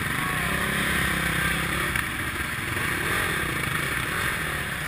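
Several enduro motorcycle engines running at low revs as the bikes creep along in a group, the nearest one idling steadily with small throttle changes.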